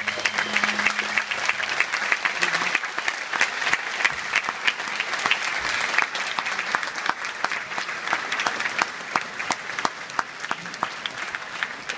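Audience applauding; the last held note of the song dies away in the first second. The clapping thins out over the last few seconds.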